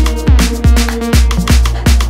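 Background electronic dance music with a steady kick-drum beat.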